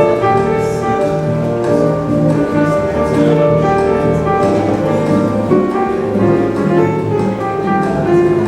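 Dance music with several instruments starts suddenly and plays on loudly.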